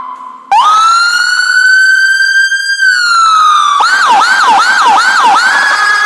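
Electronic siren from a 100-watt Big Power siren module played through a speaker, cycling its tones. After a brief break about half a second in, a long wail rises, holds and falls. Then come five quick falling whoops, then a steady high tone near the end.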